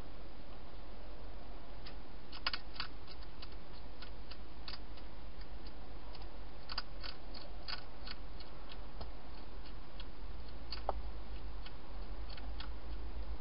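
Wild hedgehog eating dry food inside a plastic feeding box: irregular sharp crunching clicks, coming in little clusters, over a steady low hum and hiss.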